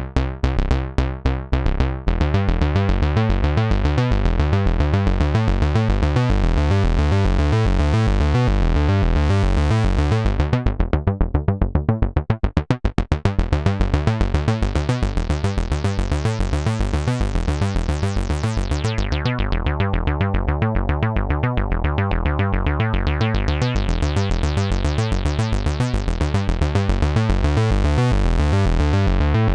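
Moog Mother-32 analog synthesizer playing a fast, repeating sequenced acid bass line. Its filter sweeps closed around the middle, dulling the notes, and opens back up to a bright, buzzy tone toward the end.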